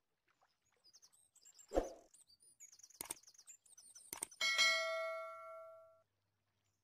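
Glass bowls knocking together: a dull knock, a couple of sharp clinks, then a small glass bowl strikes the rim of a glass mixing bowl and rings with a clear tone that dies away over about a second and a half.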